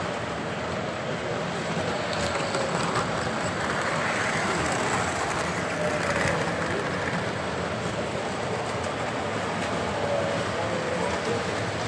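O gauge model trains running on the layout's three-rail track: a steady running rumble with no clear breaks.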